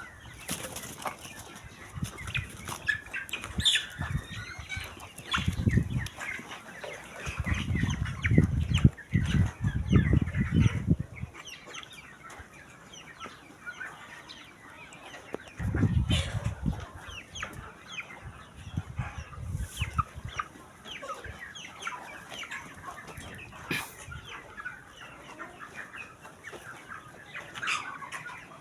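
A flock of chickens in a coop clucking and peeping continuously, with a few louder low bursts, the longest about a third of the way in. The keeper says the flock is sick with ngorok, a respiratory disease.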